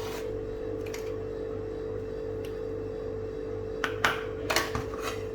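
Soft background music with a steady held tone, and a few light utensil clinks about four seconds in.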